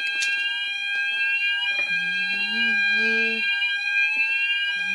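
Fire alarm sounding on test: a steady high tone together with a rising sweep that repeats about twice a second.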